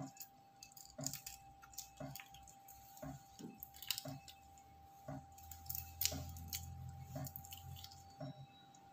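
Raw shrimp being peeled by hand: faint, scattered wet crackles and clicks of the shells coming away. Faint ticks about once a second and a faint steady tone sit behind them.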